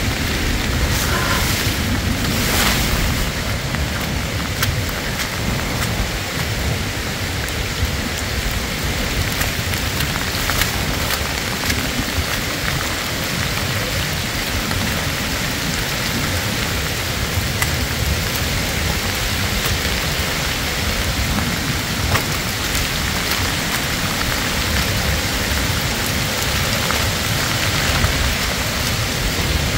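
Steady heavy rain from Hurricane Helene falling on the woods, with a low rumble of wind on the microphone.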